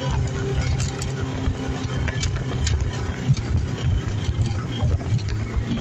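Engine of a motorized bangka running steadily under way, a constant low drone over a steady hiss from the water.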